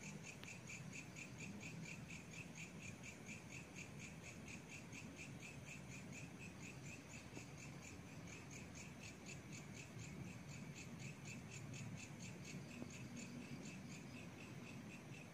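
Crickets chirping in a fast, even, unbroken rhythm, faint, over a low background rumble.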